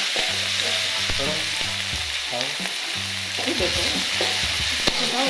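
Chopped shallots, garlic and tomato sizzling in hot chicken oil in a wok. A spatula stirs them, scraping the pan with scattered sharp taps over the steady sizzle.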